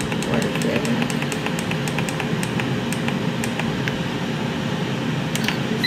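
Ninja Foodi two-basket air fryer running with a steady fan hum, over a quick run of light, evenly spaced clicks as its settings are keyed in, ending on a short beep.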